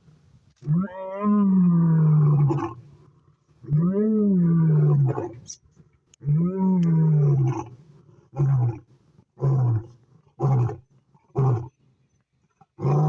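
A large animal roaring: three long, low calls, each rising then falling in pitch, followed by a run of shorter calls about one a second.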